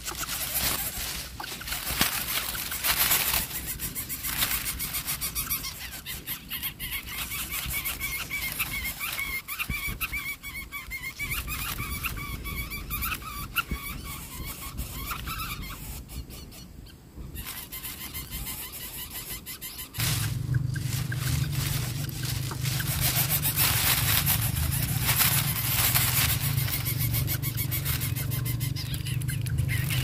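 Lesser coucal chicks squealing in their grass nest: a run of high, wavering squeals from about eight to sixteen seconds in, over constant crackling rustles of dry grass. About two-thirds of the way through, a steady low hum starts suddenly and runs on under the crackling.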